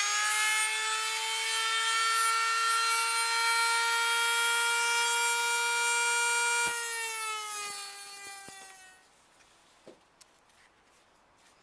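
Dremel rotary tool with a cutoff disc running at a steady high-pitched whine while grinding through the radio's sheet-metal back panel. About seven seconds in it is switched off and its whine falls away as it winds down over a couple of seconds. A few light clicks come near the end.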